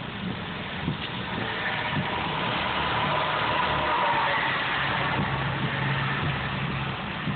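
Hail and heavy rain pelting a car's roof and windshield, heard from inside the cabin as a dense steady hiss with a few faint knocks. The hiss swells louder about a third of the way in, then eases.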